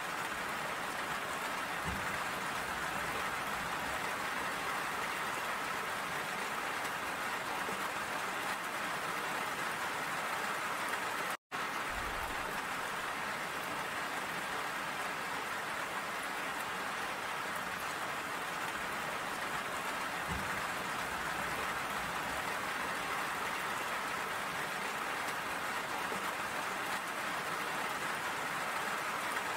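Steady rain falling, an even hiss of many drops, which cuts out for an instant about eleven seconds in.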